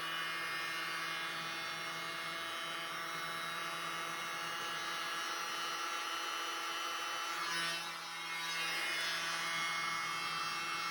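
Hairdryer running steadily, blowing wet acrylic paint across a canvas; its note dips briefly and shifts about eight seconds in.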